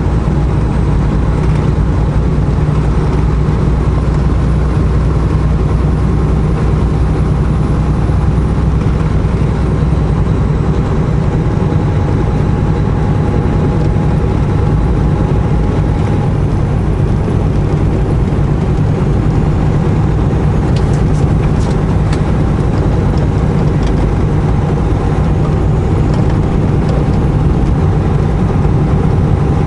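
Semi truck's diesel engine running steadily under way, with a constant low drone and road noise heard from inside the cab.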